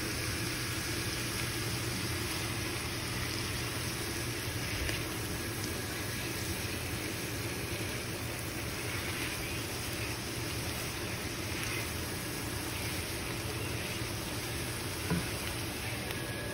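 Green beans, bacon and mushrooms sizzling steadily in a hot cast iron skillet as they are stirred with a silicone spatula. A single light knock near the end.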